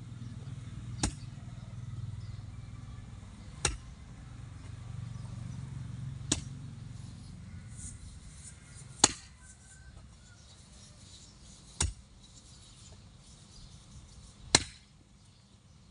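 A long-handled hoe chopping into dry, grassy soil: six sharp strikes, one every two to three seconds.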